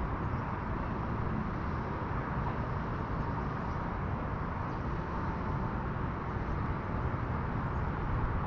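Wind buffeting the microphone: a steady, fluttering low rumble with no distinct events.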